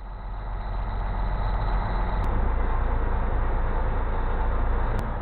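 Fishing boat's diesel engine running steadily, heard from inside the wheelhouse as a strong low hum that grows over the first second.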